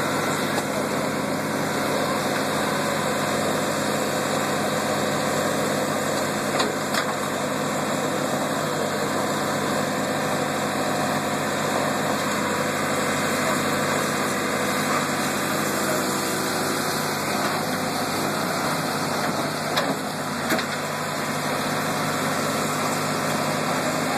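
Massey Ferguson 96 backhoe loader's diesel engine running steadily while its boom works, with a few brief knocks.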